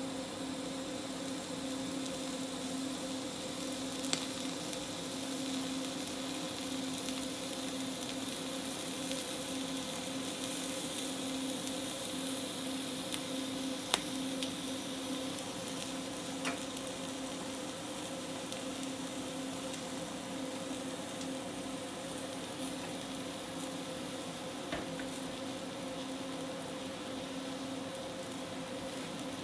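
Electric welding arc burning steadily on a steel tube, a continuous hiss and crackle over a low steady hum, with a few faint sharp ticks.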